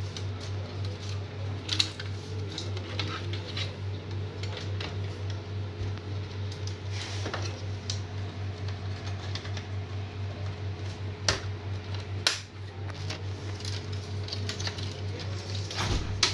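Scattered light plastic clicks and knocks from handling an HP LaserJet MFP laser printer's plastic scanner panel while a flat ribbon cable is worked through it, over a steady low pulsing hum.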